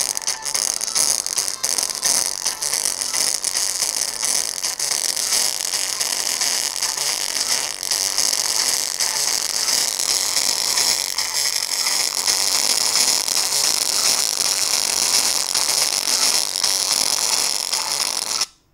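Small speaker driver overdriven by a high-power amplifier, giving a loud, harsh, crackling distorted noise with most of its energy high up. It cuts off suddenly near the end.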